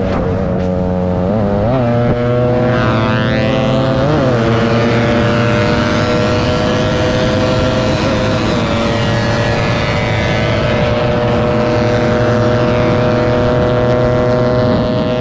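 Motorcycle engine running at high revs at speed, with brief dips in pitch about one and a half and four seconds in, then a slowly rising, steady note under wind and road rush.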